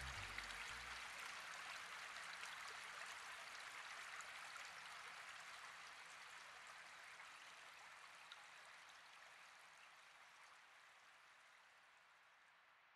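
Faint flowing-water ambience with small drips, fading slowly away. The last low notes of the instrumental music die out about a second in.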